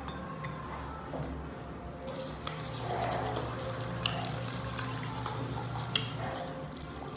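Tap running into a sink for hand-washing; the water comes on suddenly about two seconds in and then runs steadily.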